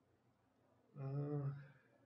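A man's brief held hum, one steady low tone lasting under a second, about a second in: a thinking sound made while deliberating; otherwise near silence.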